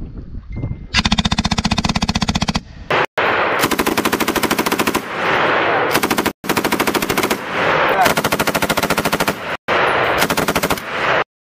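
M249 light machine guns firing long bursts of rapid automatic fire, in several stretches broken by abrupt cuts. The firing stops suddenly shortly before the end.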